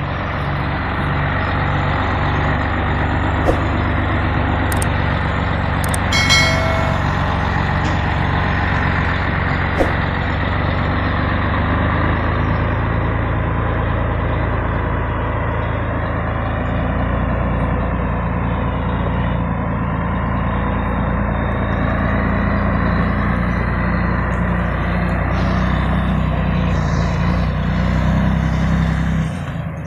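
Scania 113H 320 truck's diesel engine running steadily under load as the tractor-trailer drives off on a test run, now moving in gear after its high/low range-change servo was repaired. A brief higher tone sounds about six seconds in.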